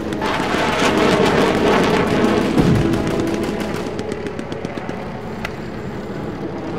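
Battlefield gunfire sound effects: rapid crackling shots, with a low thud about two and a half seconds in, thinning out to scattered shots after about four seconds, over background film music.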